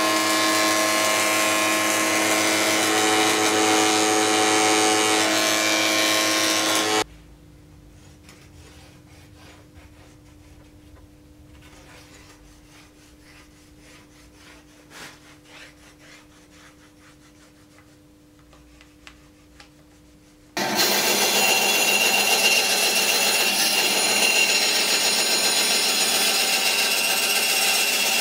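A woodworking table saw runs with a steady whine for about seven seconds, then stops suddenly. A quiet stretch follows with a faint hum and light hand-handling sounds on a wooden board. About 21 seconds in, a bandsaw starts cutting a long, thin wooden board.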